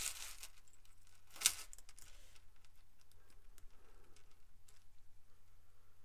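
Light scattered clicks and clinks of small metal chainmail rings being handled, with one sharper click about a second and a half in, over a faint low hum.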